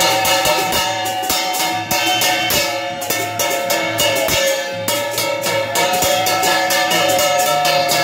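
Music: fast, dense drumming and percussion strikes under a sustained melody line held on a few notes that shifts pitch now and then.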